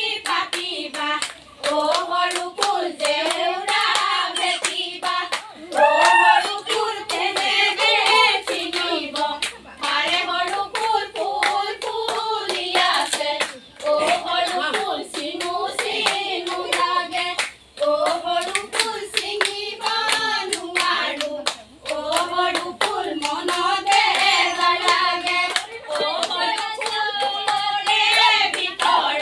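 Group of women singing a Jeng Bihu song, an Assamese women's Bihu folk song, keeping time with steady hand claps. The singing runs almost without a break, with short pauses between phrases.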